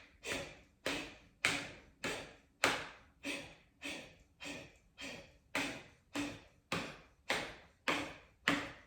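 A person doing Kapalbhati (breath of fire) breathing: a steady run of quick, forceful exhales through the nose, about one every 0.6 seconds, each a sharp puff that starts suddenly and fades away.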